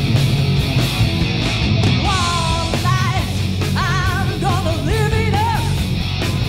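A live hard-rock band plays: distorted electric guitars, bass guitar and drum kit. From about two seconds in, a woman sings long, wavering held notes over the band.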